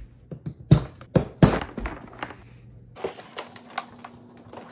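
Plastic side-release buckles on the straps of a folded Oru Kayak Inlet snapping open, about four sharp clicks and knocks in the first two seconds, then the folded plastic hull rustling and flexing as it is opened out from about three seconds in.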